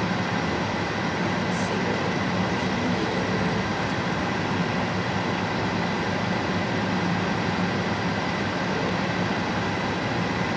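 Steady hum and rush inside a stationary car's cabin: the engine idling with the air-conditioning fan blowing, a low even drone under a constant airy hiss.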